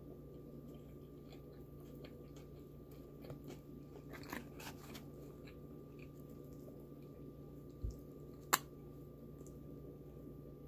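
Close-miked mouth sounds of a person chewing a McDonald's Big Mac: soft, scattered chewing clicks, busier around four to five seconds in, over a steady low hum. A low thump is followed by a single sharp click at about eight and a half seconds, the loudest sound.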